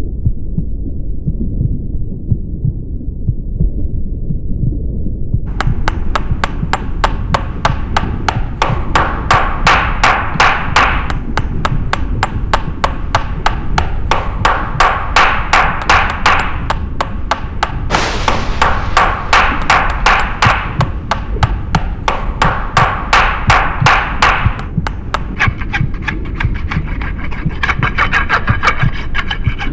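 Sound-effect track: a low throbbing rumble, joined about five seconds in by a fast, even run of sharp knocks, with ringing tones swelling in and out over them.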